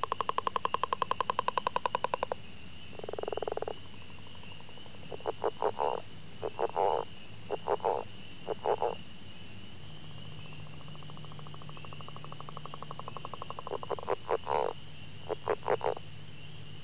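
Frogs calling: a fast rattling trill, then a short buzzy call, then repeated groups of three or four quick croaks, with a softer trill building in between. A faint steady high-pitched drone runs behind them.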